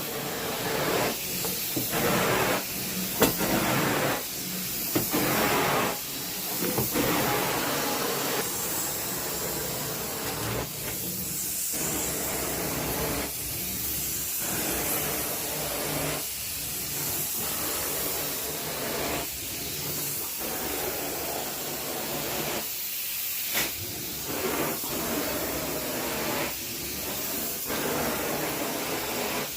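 Professional carpet-cleaning machine running with a steady rushing noise that swells and dips every second or two as it is worked back and forth over the carpet.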